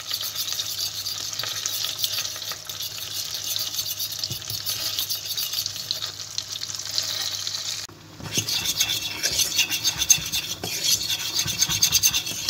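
Butter sizzling in a stainless steel pot as a fork stirs it for a béchamel sauce. After a short break about eight seconds in, the fork scrapes and stirs a thick butter-and-flour roux against the bottom of the pot.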